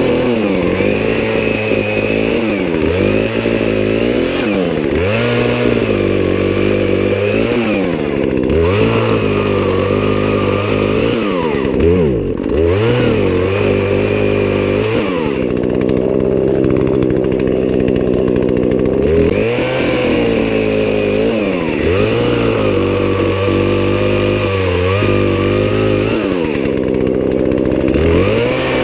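Poulan Pro two-stroke chainsaw running loud and continuously, its engine pitch repeatedly sagging and climbing back every second or two as it is revved up and down.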